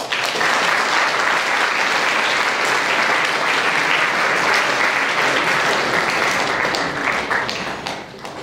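Audience applauding, starting at once and holding steady, then thinning out to a few scattered claps near the end.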